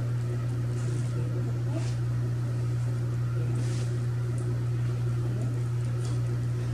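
A steady low hum, the loudest thing throughout, with a few brief soft crinkles of a small plastic treat bag being handled.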